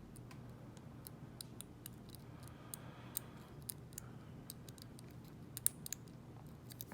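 Faint, irregular metallic clicks of a lock pick working the pin stacks of a Round American padlock under light tension, trying to set a back pin behind a low front pin.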